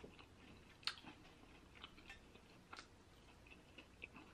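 A person eating with their fingers: quiet chewing, with soft mouth clicks and small crunches. A sharper click comes about a second in and another near three seconds.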